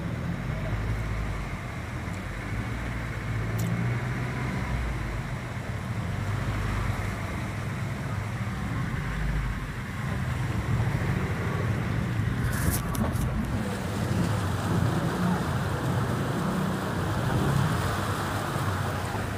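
Car engine running with road noise, heard from inside the cabin while driving along a mud-covered, flooded street, with a few brief knocks about two-thirds of the way through.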